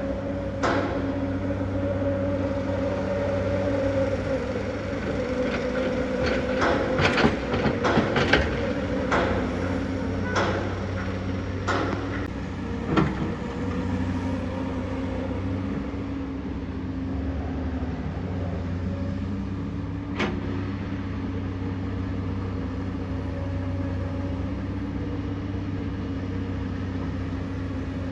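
Komatsu PC210LC hydraulic excavator's diesel engine running steadily, with a burst of loud knocks and clanks in the middle and one more knock later.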